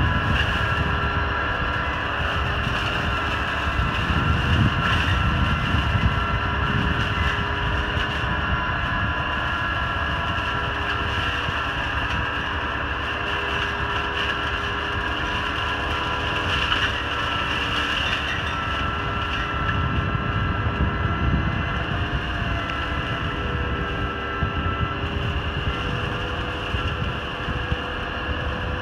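Valtra N111 tractor's diesel engine running steadily under working load while the hydraulically driven flail head of a tractor-mounted Spearhead hedge-cutter spins and cuts a hedge. It is a continuous mechanical drone with a constant whine over it, and the low rumble swells a few times.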